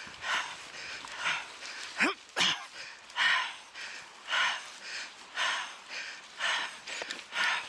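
Hard, heavy breathing of a person on a long uphill climb, about one loud breath a second. There are two short rising groans about two seconds in.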